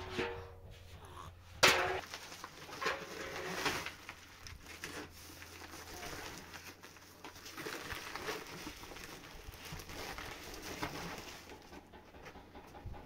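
A sack rustling and dry cement powder being scooped and poured into a metal basin in irregular rasping strokes, with a sharp knock about two seconds in.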